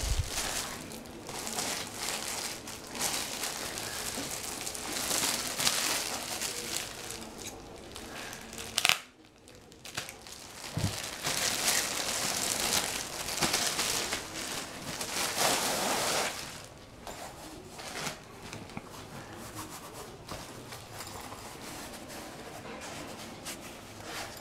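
Clear plastic poly bag crinkling and rustling as a fabric laptop sleeve is handled and pulled out of it, with one sudden loud crackle about nine seconds in. The crinkling dies down to quieter handling for the last several seconds.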